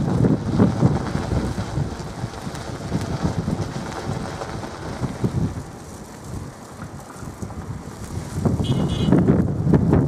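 Strong, gusty wind buffeting the microphone: a low rumbling that swells and fades with each gust, loudest at the start and again near the end, easing off in between.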